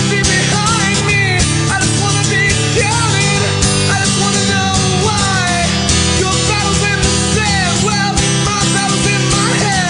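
Rock band playing an instrumental passage: electric guitar with gliding, bending lead notes over bass and a steady drum beat.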